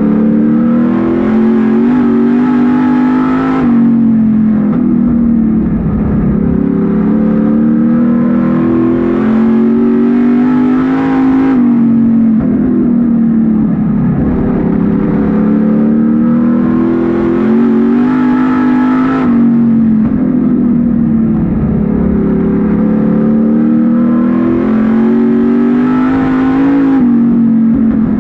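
Street stock race car's V8 engine heard from inside the cockpit under racing load. Its pitch climbs for several seconds, then drops sharply as the driver lifts for a turn, a cycle that comes about every eight seconds, four times in all.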